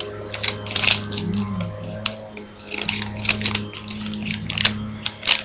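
Origami paper being handled and folded close to the microphone: irregular crinkles and crackles, over a steady low hum.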